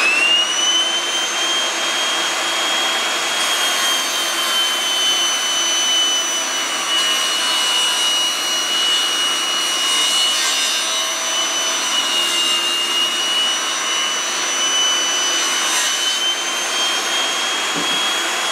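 Rock&Rocker 8½-inch dustless table saw running with a steady high whine over the rush of its built-in dust extraction, its 60-tooth blade ripping a knotty board lengthwise. The whine drops slightly in pitch through the middle as the blade takes the load of the cut, then rises again near the end.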